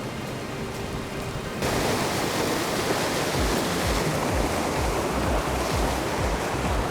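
Steady rush of water pouring over a creek waterfall and rapids, stepping up louder about one and a half seconds in.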